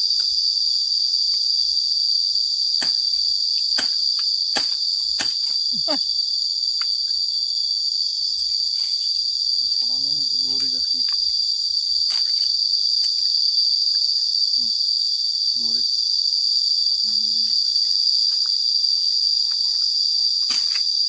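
Steady, loud high-pitched drone of an insect chorus. A handful of sharp chops from a machete cutting undergrowth fall between about three and six seconds in.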